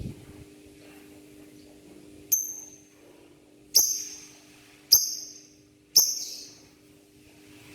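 Male lovebird calling for a female: four shrill, high-pitched calls, each sharp at the start and tailing off, about a second apart. A faint steady low hum runs underneath.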